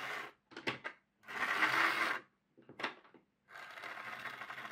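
Hornby Dublo Class 20 model locomotive's electric motor and metal gears running on the track, a wee bit grindy sounding. It runs in short stops and starts, then steadily near the end.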